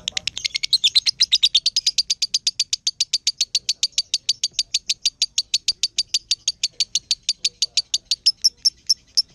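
Fischer's lovebird ngekek: a long unbroken run of rapid, high chirps, about eight a second, held without a pause. This is the continuous 'konslet' style of lovebird song.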